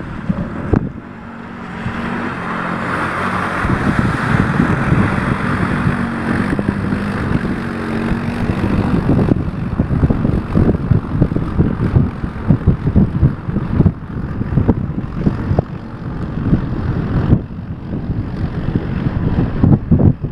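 ATV engine running, its pitch shifting up and down, under heavy wind buffeting and rumble on the microphone.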